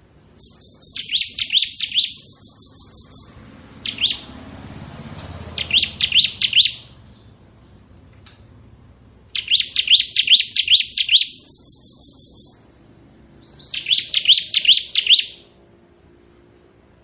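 Bar-winged prinia (ciblek) singing its rapid drilling 'ngebren' trill: five bursts of quick, high, rising notes repeated several times a second. The longest bursts last about three seconds, and there is a very short one about four seconds in.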